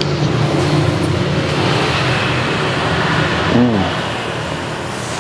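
A motor vehicle running on the road close by, its engine and road noise louder through the first few seconds and then easing off as it goes past.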